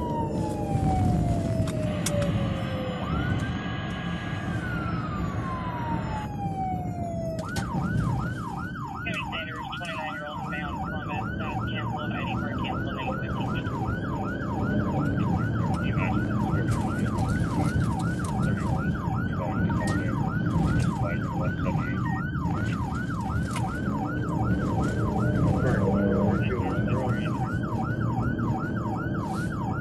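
Fire department vehicle's electronic siren sounding a slow wail that falls in pitch, then switching about seven seconds in to a fast yelp of about two and a half cycles a second. Under it runs the steady rumble of the vehicle's engine and road noise.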